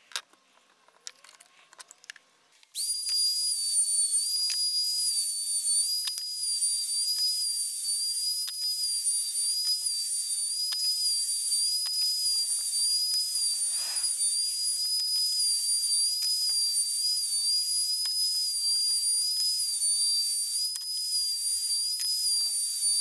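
Small electric plunge router switched on about three seconds in, then running with a steady high-pitched whine that wavers slightly as it cuts along a plywood edge. Before it starts, a few light clicks as the router is handled and its depth set.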